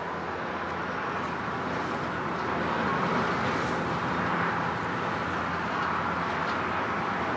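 Boeing 747 jet engines at takeoff thrust, heard from a distance as a steady rushing noise that grows a little louder two to three seconds in.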